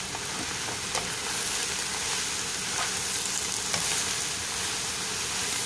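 Sliced squash and ridge gourd sizzling in hot canola oil in a non-stick frying pan, a steady hiss, while a spatula stirs them with a couple of light clicks against the pan.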